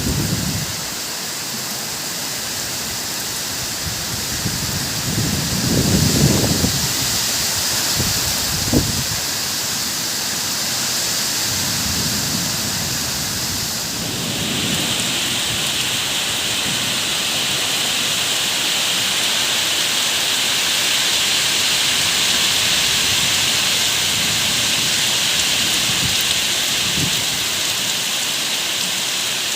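Steady rain falling, with a few low rumbles of thunder in the first half, one sharper crack among them. About halfway through, the rain turns abruptly to a harder, hissier downpour.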